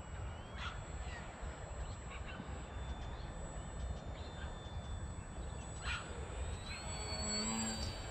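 Jupiter Scout RC airplane's battery-powered electric motor and propeller whining faintly overhead, the whine rising in pitch near the end, over wind rumble on the microphone. A bird calls near the end.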